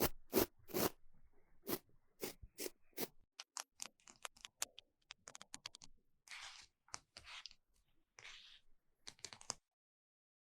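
Close-miked handling sounds: a run of sharp snips or clicks about two a second, then quicker light ticks, then several short scraping, crinkling rustles that stop about a second before the end.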